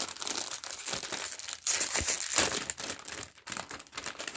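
Foil booster-pack wrappers crinkling and crackling as they are handled and opened, loudest around the middle.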